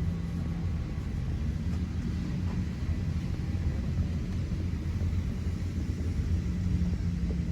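Steady low hum in the cabin of a parked Airbus A350-900 airliner, the drone of its ventilation while boarding, with a constant low tone and its octave under an even rush of air.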